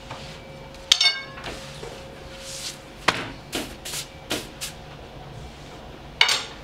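Sharp clanks of bakery utensils and equipment being handled: a loud one about a second in and another near the end, each ringing briefly, with a quick run of five lighter knocks in between, over a faint steady hum.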